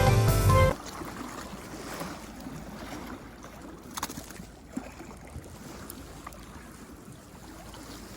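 Background music cuts off suddenly less than a second in, leaving low, steady seaside ambience of wind and water with a few faint clicks.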